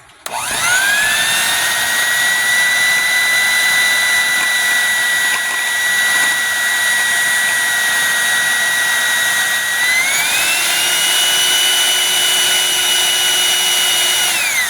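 Blender motor whipping dalgona coffee: it starts up with a rising whine, runs steadily at one pitch, steps up to a higher pitch about ten seconds in, then winds down at the end.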